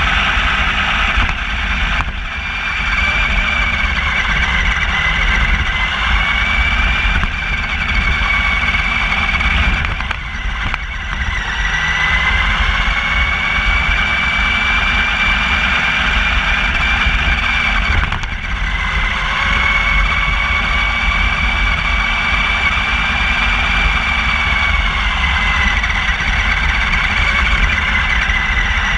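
Electric motor of a radio-controlled car whining, its pitch slowly rising and falling as it speeds up and slows down, over a steady low rumble of its tyres on pavement, heard close up from a camera mounted on the car. The whine breaks off briefly a few times.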